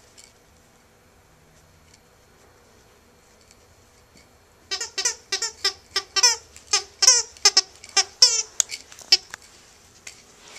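A puppy chewing a plush toy snake's squeaker: a quick run of short squeaks, each dropping in pitch, about three a second, starting about halfway through and stopping shortly before the end.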